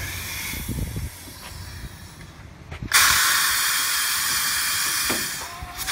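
Compressed air hissing through the valve and air cylinders of a pneumatic sheet-metal folding machine as it is actuated. The hiss starts suddenly about three seconds in and holds steady for nearly three seconds before cutting off.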